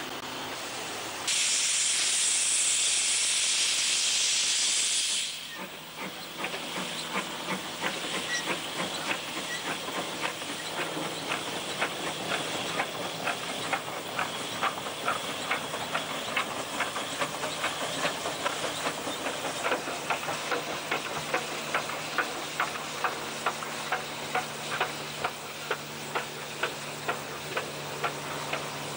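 Small saddle-tank steam locomotive: a loud hiss of escaping steam for about four seconds, then steady chuffing from the chimney, with regular exhaust beats at about two a second as the engine works along the track.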